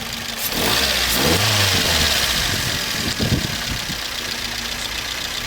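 Toyota Vitz's 1SZ-FE four-cylinder engine idling with a diesel-like knock, revved up about half a second in, then dropping back to idle around three seconds in after a second short blip. The knock comes and goes and its cause is unknown to the owner.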